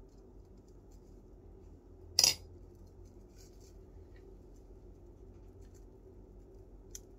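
A metal spoon clinks once, sharp and loud, against a container about two seconds in, amid faint crinkling of plastic wrap being handled; a smaller click comes near the end.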